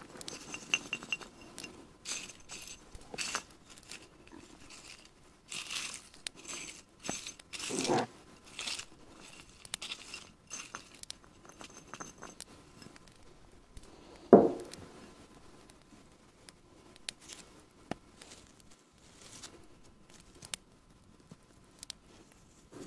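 Hands handling small objects: light glass clinks, rustling and crinkling, and scattered taps, with one louder knock a little past the middle.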